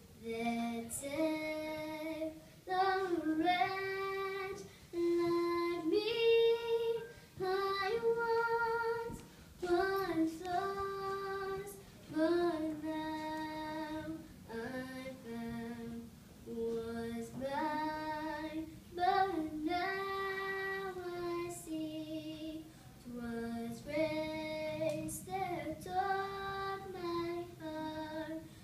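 A young girl singing a song solo and unaccompanied, in phrases of held notes that step up and down in pitch, with short breaths between them.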